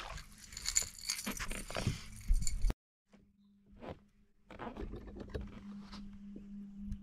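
Jangling, clicking handling noise on the boat as the little spotted bass and the topwater lure's treble hooks are handled. It cuts off suddenly about two and a half seconds in. A low steady hum from the bow-mounted Minn Kota electric trolling motor follows, with a few light clicks.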